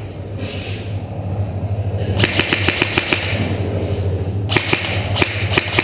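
Airsoft guns firing: runs of sharp, quick shots starting about two seconds in and going on to the end.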